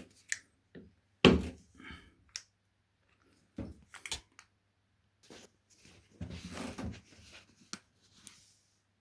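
Scattered knocks, clicks and short rustles of objects being handled, with a sharp knock about a second in, over a faint steady hum.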